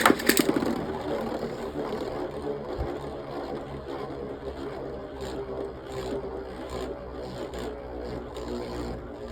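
Two Beyblade spinning tops launched with a loud rip and clatter at the start, then spinning against each other in the stadium with a steady whirring hum and faint clicks every second or so as they knock together.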